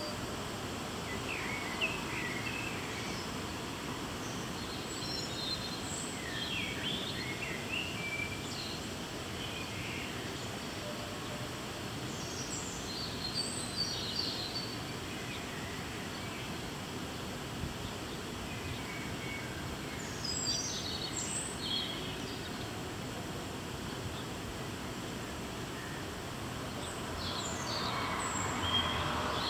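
Steady low outdoor background noise with birds chirping in short bursts every few seconds. The noise swells briefly near the end.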